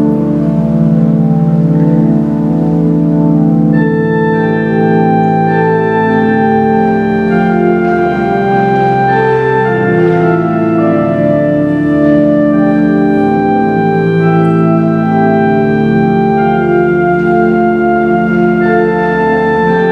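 Church organ playing slow, sustained chords, the held notes changing every second or two. Higher, brighter notes join in about four seconds in.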